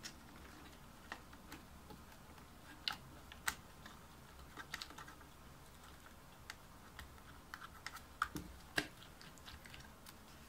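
Faint, irregular clicks and taps of fingers pressing the rubber dome sheet and plastic membrane layers of an opened Microsoft Ergonomic Keyboard 4000 down into its case over the plastic alignment pins.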